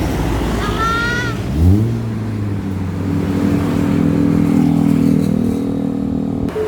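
A bus at close range: a short wavering high tone about a second in, then a low pitched drone that glides up and holds steady for about five seconds before cutting off suddenly.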